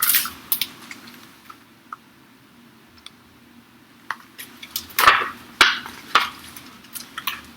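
Pages of a picture book being turned and handled: a few short rustles and sharp taps, the loudest about five seconds in.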